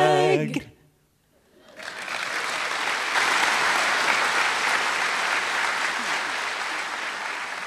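A held sung chord from several voices cuts off just after the start. After a short silence, an audience applauds steadily from about two seconds in.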